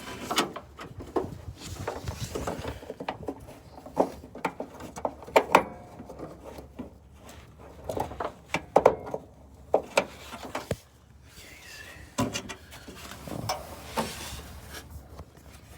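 Irregular plastic clicks, knocks and rubbing from hands working a bulb into a car's park-light housing, with several sharper knocks along the way.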